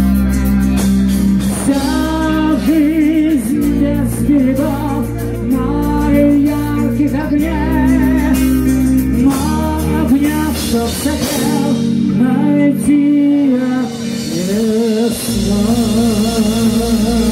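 Live heavy metal band: a high male lead voice sings with wide vibrato over electric guitar, bass and drums. The deep bass drops away for a few seconds past the middle and comes back near the end.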